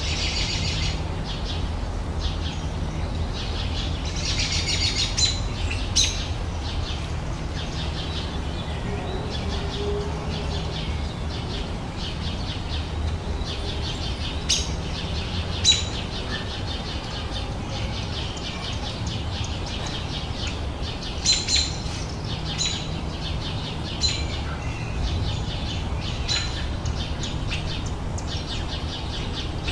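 Several birds singing and chirping at once, a dense chorus with sharper single calls standing out every few seconds, over a steady low rumble.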